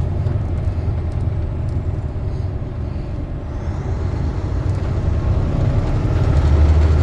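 Engine and road noise heard from inside a truck's cab: a steady low rumble that grows louder near the end.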